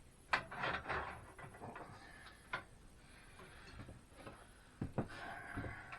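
Sharp clicks and short sliding, scraping rattles of metal and plastic parts on a Craftsman sliding miter saw as they are handled and adjusted: a click with a rattle at the start, a lone click midway, and two clicks with a longer scrape near the end.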